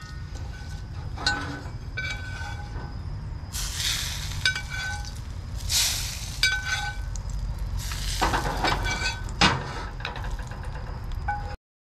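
A metal spoon clinks and scrapes against a cast-iron skillet and a ceramic plate as pan juices are spooned over a steak, with short spells of sizzling from the hot pan and a steady low rumble underneath. The sound cuts off suddenly near the end.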